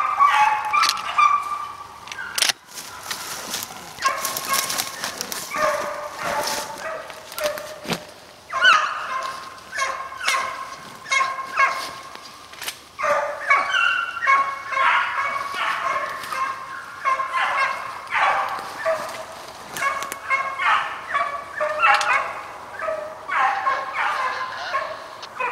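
A pack of deer hounds baying on a running deer: short, rapid yelps in overlapping clusters that come and go, with a sharp knock about two and a half seconds in.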